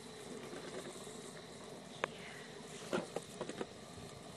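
Night insects chirping steadily in the background, with a sharp click about two seconds in and a short run of clicks around three seconds.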